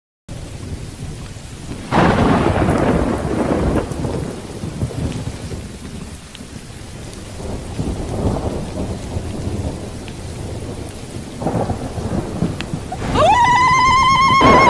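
Thunderstorm: rain with rolling thunder, a loud thunderclap about two seconds in and more rumbles later. Near the end a wavering high tone sweeps up and holds.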